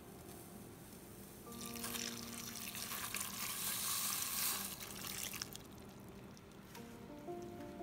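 Water poured in a stream into a stainless steel pan of diced bottle gourd, splashing on the vegetable pieces. The pour starts about two seconds in and lasts about four seconds.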